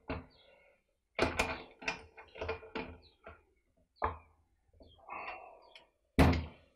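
Ratchet wrench clicking and knocking as it tightens a chainsaw clutch, in a run of irregular metal clicks, then a louder clunk near the end as the wrench is set down.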